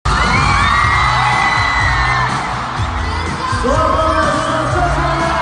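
Live pop music played through a concert sound system, with a heavy steady bass beat, and high-pitched screams and whoops from the crowd over it.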